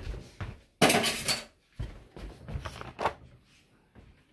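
Disposable aluminium foil baking pan crinkling and clattering as it is handled and moved, with a loud crinkle about a second in and a few shorter knocks after.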